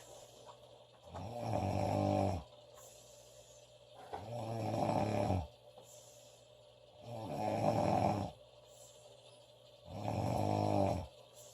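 A woman snoring loudly in her sleep: four rattling, pitched snores about three seconds apart, each lasting a little over a second, with quiet breaths between them.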